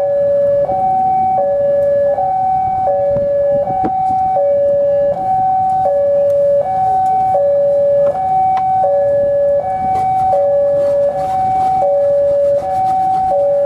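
Railway level-crossing warning alarm sounding its two-tone signal, a higher and a lower tone alternating about every three-quarters of a second, as a train approaches. The low rumble of the passing diesel-hauled train runs underneath.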